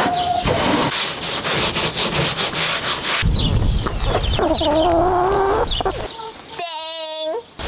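A paintbrush scrubs paint onto wooden boards in quick scratchy strokes for about the first three seconds. Then a hen calls in drawn-out, wavering notes, twice, the second call near the end.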